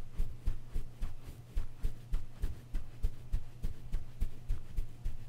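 Makeup brush stroked quickly back and forth over a microphone's foam cover, making soft swishes with a low thud on each stroke, about three a second, over a steady low hum.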